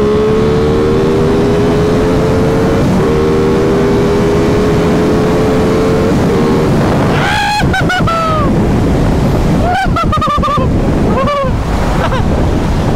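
Aprilia Tuono 660's parallel-twin engine pulling hard under acceleration, its pitch rising steadily for about six seconds over heavy wind rush. After that, several short, sharp pitched bursts rise and fall.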